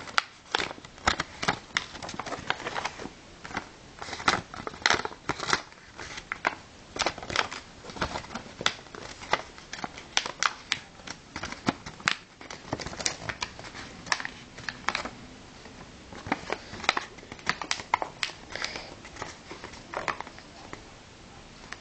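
Origami paper crinkling and rustling as it is folded and creased by hand, with irregular crackles and small taps.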